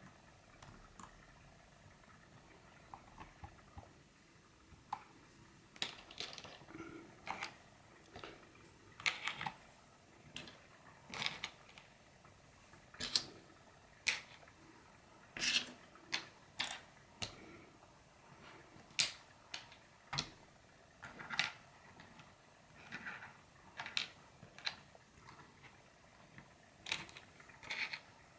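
Computer mouse scroll wheel and middle button clicking: short, sharp clicks at irregular spacing, about one a second, starting a few seconds in.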